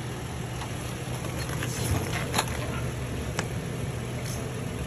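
Steady low hum of an idling vehicle engine, with a couple of sharp clicks about two and a half and three and a half seconds in.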